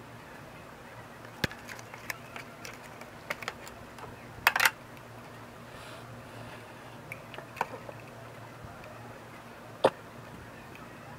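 Scattered sharp plastic clicks and taps from handling a hand-held remote control transmitter. The loudest are a quick cluster about four and a half seconds in and a single click near the end, over a faint low steady hum.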